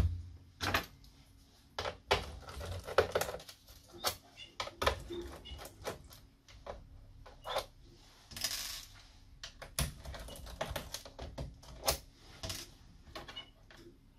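Handling noise of an aluminium MacBook on a wooden desk: a knock as it is set down upside down, then scattered light clicks and taps. About eight seconds in there is a brief hiss as a hand sweeps across the bottom case, and near the end a small screwdriver clicks against its case screws.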